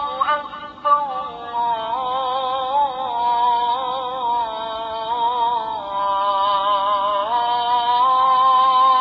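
An adhan, the Islamic call to prayer, sung by a single voice in long held notes with wavering ornaments, played back from an Elmi Quran and adhan player. The pitch steps down about a second and a half in and climbs back up near the end.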